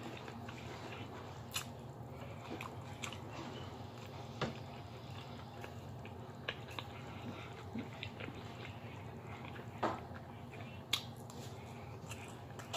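Close-up chewing and mouth sounds of someone eating rice and cabbage, with a few sharp clicks of a plastic fork against a ceramic plate. A steady low hum runs underneath.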